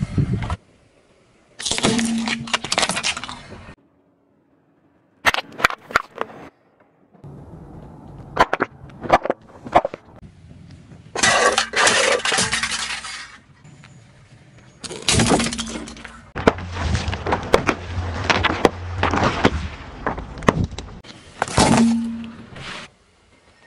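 Car tyre rolling over and crushing objects on asphalt: a series of separate crunching, cracking bursts a few seconds apart, each cut off abruptly. Near the end, a plastic round hairbrush cracks apart under the wheel.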